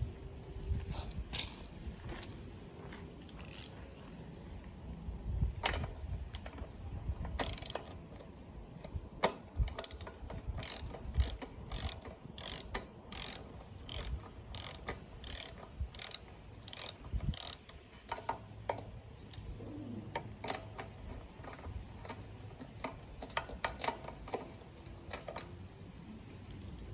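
Ratchet wrench clicking as a spark plug is turned in a lawn mower engine. There is a steady run of about two clicks a second in the middle, with scattered clicks and knocks of tool handling around it.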